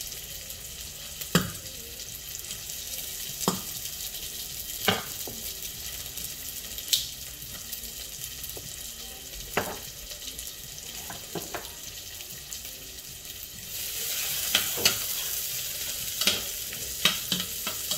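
Sliced onions with whole cinnamon, cardamom and cloves frying in oil in a stainless steel pot: a steady sizzle with a sharp click every second or two. About fourteen seconds in the sizzle grows louder as a spoon stirs the onions, with a few more clicks.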